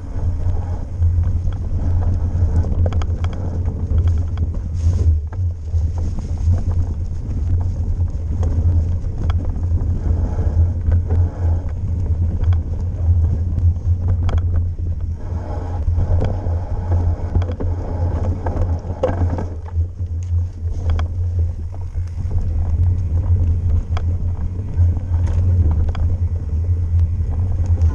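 Mountain bike descending a dirt forest trail, heard through a ride-mounted camera: a steady low rumble of wind and rolling on the microphone, with scattered knocks and rattles as the bike hits roots and bumps.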